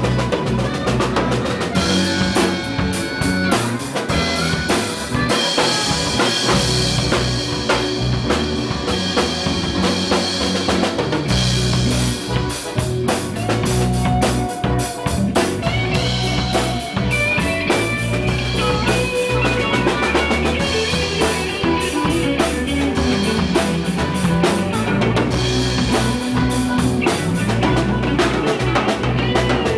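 A live blues band playing a funky groove: a drum kit with snare rimshots and bass drum, an electric guitar, and a harmonica played through a cupped microphone.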